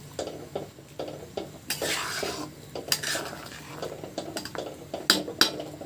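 Spatula stirring thin, simmering potato and curd gravy in a wok, scraping along the pan and clinking against its sides in a run of sharp knocks, with one longer scrape about two seconds in.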